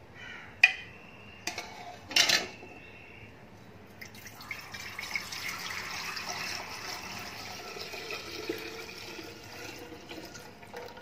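Falsa juice poured from a steel bowl into a glass jug: a steady splashing stream of liquid from about four seconds in, running to near the end. Before it, a few sharp clinks and knocks.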